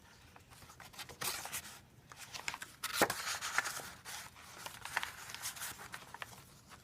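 Paper pages, flaps and tags of a handmade journal rustling and crinkling as they are handled and turned, with a sharp tap about three seconds in.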